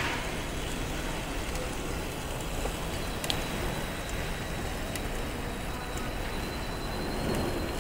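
Steady low rumble of a crowded hall around a running LEGO Break Dance ride model. A faint high whine comes in about three seconds in, with a single click shortly after.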